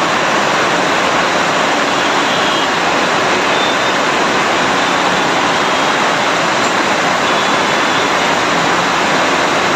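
Heavy rain pouring down steadily: a loud, even hiss.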